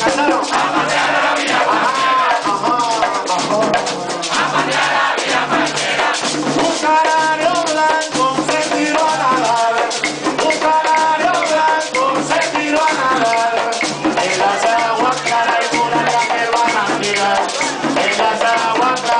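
Live plena music: several panderos (hand-held frame drums) beating a steady rhythm with a gourd güiro scraping, and voices singing over them.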